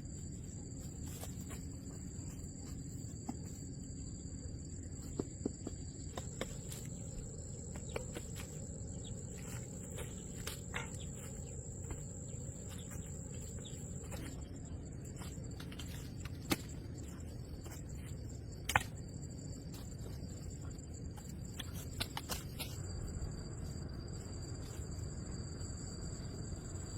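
Insects droning in two steady high-pitched tones over a low outdoor rumble, with scattered light clicks and knocks and one sharper knock a little past the middle.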